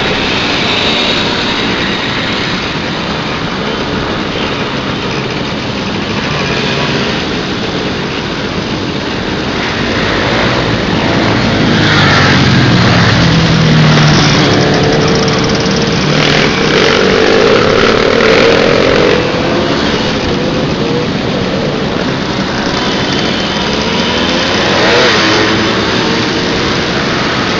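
Many Simson two-stroke moped engines running together in a riding convoy, heard from a scooter in the middle of the pack. The engine notes rise and fall, louder and revving for a while about halfway through.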